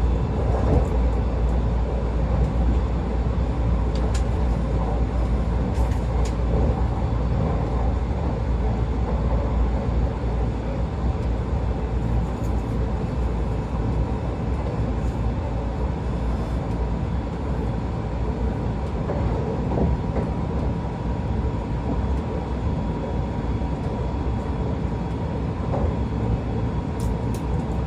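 Running noise inside a JR West 681 series electric motor car, which has three-phase induction traction motors: a steady low rumble of wheels on rail with a continuous hum near 1 kHz, and a few faint clicks early on.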